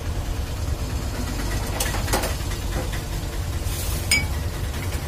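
Steady low rumble of street traffic and engines, with a few light clinks of glass tumblers set down and handled on a steel counter about two seconds in and again near the end.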